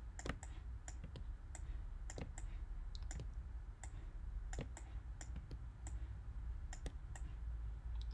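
Scattered light clicks from computer input devices, irregularly spaced, over a low steady hum.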